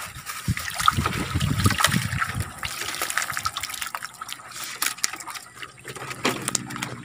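Water splashing and pouring off a mesh fish keep net as it is hauled up out of the water, then running and dripping off the net and the fish inside. The first couple of seconds are the loudest; the dripping grows lighter after that.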